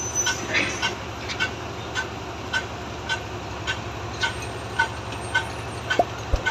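A short electronic warning beep repeating evenly, a little under twice a second, over the steady low drone of heavy machinery engines lifting concrete bridge girders.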